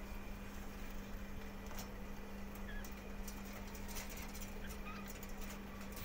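Faint scattered clicks and taps over a steady low hum.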